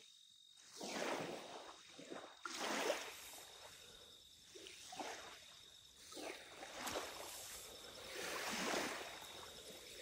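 Water washing in soft, uneven swells, each rising and fading over about a second, with a faint steady high tone throughout.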